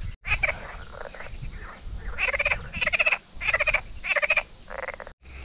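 Frog croaking: short rattling calls, a first group in the opening second, then five in a row about half a second apart.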